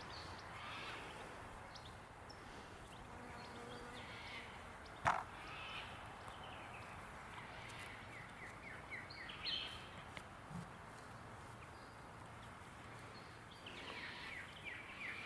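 Bush ambience with scattered bird calls, including quick runs of short chirps, over a low steady background hiss. A single sharp click about five seconds in.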